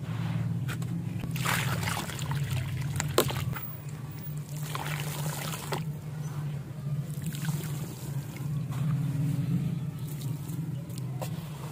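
Fine dry sand being pressed and poured by hand into a plastic tub: the grains hiss and trickle in several waves, with a sharp click about three seconds in. A steady low hum runs underneath.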